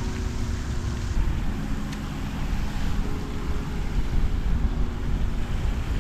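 Wind buffeting the microphone: a gusty low rumble.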